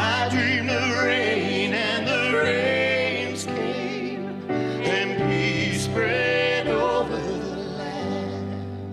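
A song: a solo voice singing long notes with vibrato over sustained accompaniment chords, the voice dropping out about seven seconds in and leaving the chords.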